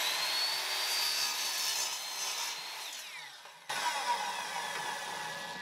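Ryobi miter saw running up to a steady high whine and cutting the end off a short piece of wood, then winding down with a falling whine about three seconds in. After a sudden jump in level, the blade is heard still coasting down.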